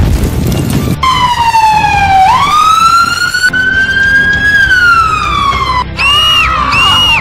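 A blast of noise in the first second, then an emergency-vehicle siren wailing with a slow falling, rising and falling pitch. About six seconds in it switches to a faster repeating up-and-down tone, about one and a half cycles a second.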